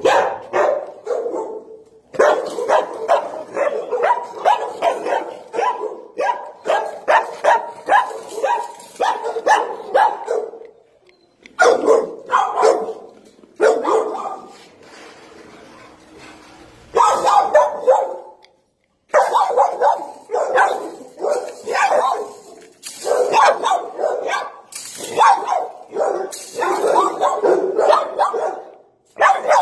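Shelter dogs barking in their kennels, in rapid runs of several barks a second, with a quieter lull about halfway through.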